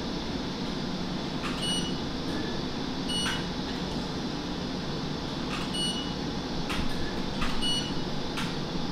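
Four short, high electronic beeps from operating-room equipment, irregularly spaced, over a steady background hum, with a few faint clicks.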